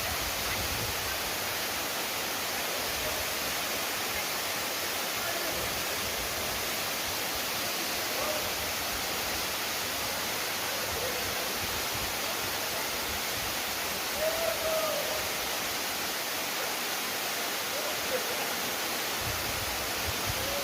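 Waterfall pouring hard and steadily, an even rushing hiss. Near the middle there is a faint short sound that could be a voice.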